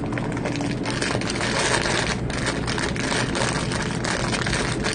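Plastic packaging crinkling and rustling as a bag of tteokbokki rice cakes is handled and opened, with many small crackles. A low steady hum runs underneath.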